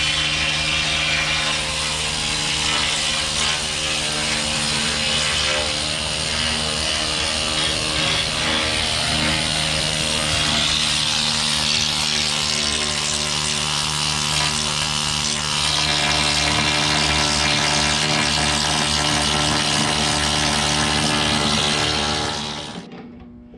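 Pneumatic chipping tool hammering rust and old paint off a steel deck: a loud, continuous rapid hammering that cuts off near the end.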